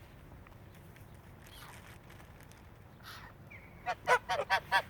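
Large waterbird, goose or gull, giving a rapid run of about six short honking calls near the end, after a few seconds of only faint background sound.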